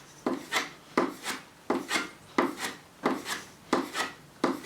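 Steel chisel being stropped on a leather belt: quick, even scraping strokes, roughly three a second, as the final honing of an edge fresh off the sharpening stones.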